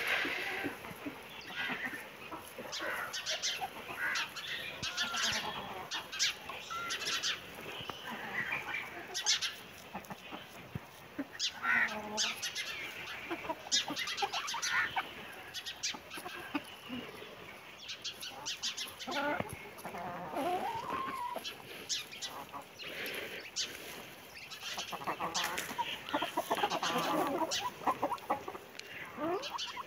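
Chickens clucking and calling: an uneven run of short, sharp clucks with a few longer calls among them.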